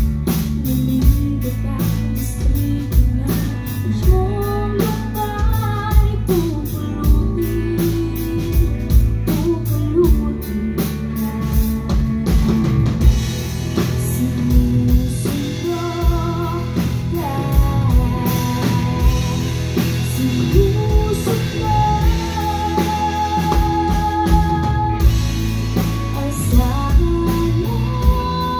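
Live rock band playing a song: a singer over guitar and drum kit.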